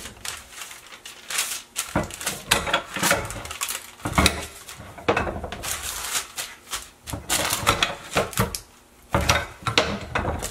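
Tortilla press being worked by hand to flatten a ball of dough between sheets of parchment paper: an irregular run of knocks and clacks from the press, with paper rustling between them.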